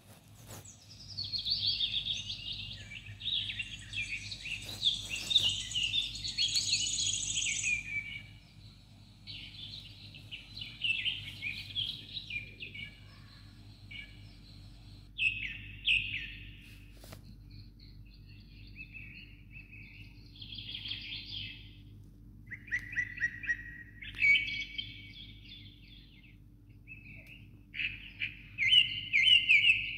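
Birds chirping and trilling in quick runs of short calls. Several runs overlap densely for the first several seconds, then come in separate bursts every few seconds.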